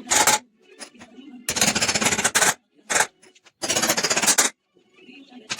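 Impact driver driving screws in several short bursts of rapid rattling hammering. The two longest bursts last about a second each, with brief gaps between them.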